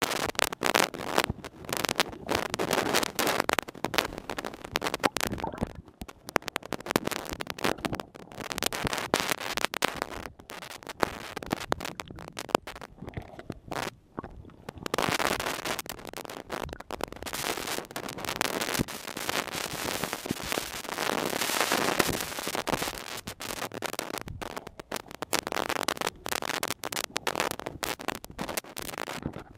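Crackling and clicking over a rushing hiss that swells and fades, heard through a camera submerged in the water.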